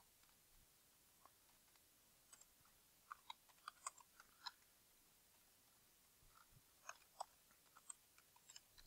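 Faint computer keyboard keystrokes in two short runs of taps, one about three seconds in and another from about six seconds in, over near silence.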